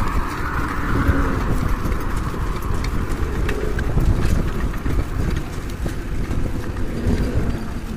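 Wind buffeting the microphone over the rumble of a bicycle rolling along an asphalt road, with scattered light rattles and clicks from the bike.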